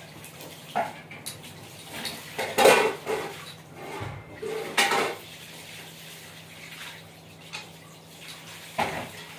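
Hard objects clinking and clattering against a basin as they are handled: a few separate knocks, with a louder run of clatter about two and a half seconds in and another near five seconds.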